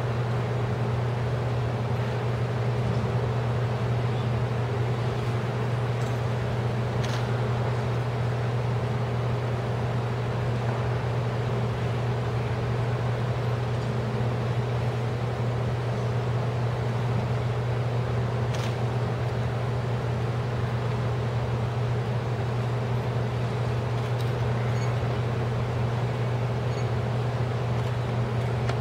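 Steady low hum with a hiss of noise over it: the background drone of a large indoor hall, with a few faint ticks.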